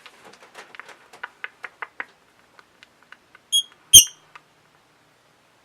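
Baby lovebird chattering in soft, quick clicks and chirps, then giving two sharp, high-pitched squeaks about half a second apart, the second the loudest and coming with a knock from handling.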